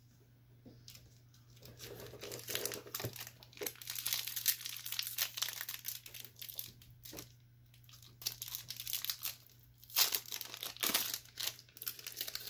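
Foil wrappers of Pokémon Trading Card Game booster packs crinkling and tearing as they are opened by hand. The crinkling starts about a second and a half in, eases off around two-thirds of the way through, and picks up loudly again near the end as the cards are pulled out of the wrapper.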